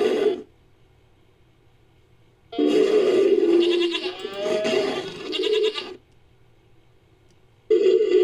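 Made-up creature call mixed from animal recordings, sounding like a deep goat bleat: one long wavering call of about three and a half seconds. The end of an earlier call fades out at the very start, and a new call begins near the end.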